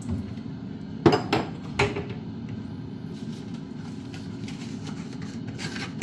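Three sharp knocks and clinks of kitchen containers being handled, about a second in. Under them runs the steady low hum of a Kumtel Digital Fastfryer air fryer cooking.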